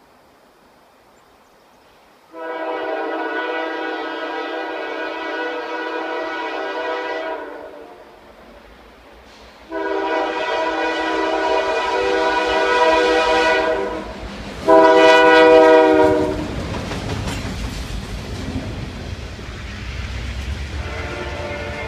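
Diesel freight locomotive's air horn sounding long, long, short, then a fainter long, the pattern blown for a grade crossing. From about halfway through, the locomotives' engines and the rolling freight cars rumble past close by.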